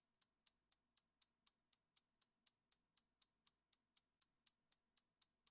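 Faint, even clock-style ticking, about four ticks a second: a countdown-timer sound effect.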